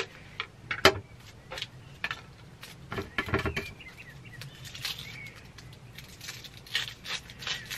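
Dry, papery onion skin crackling and rustling in irregular clicks as it is peeled off by hand, with one sharper click about a second in.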